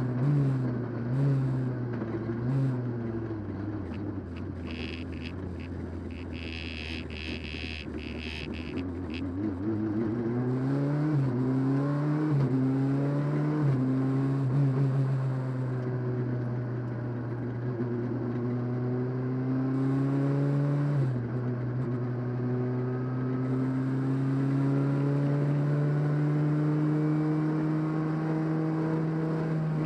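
Rally car engine heard from inside the cabin, revving up and down through gear changes: it drops to low revs for a few seconds with a high-pitched squeal over it, then climbs through the gears and holds high revs, with one more shift about 21 seconds in.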